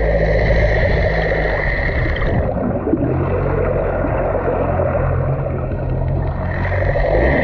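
Fishing boat's engine running steadily, with water rushing along the hull. A high steady whine drops out about two and a half seconds in and returns near the end, and the engine's note shifts slightly about three seconds in.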